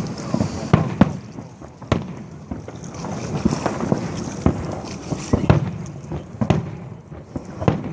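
Fireworks salute: shells bursting in irregular booms and cracks, about a dozen bangs in quick, uneven succession.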